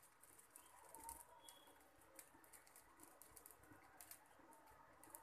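Near silence with faint, sparse crackling: dosa batter cooking on a hot iron tawa.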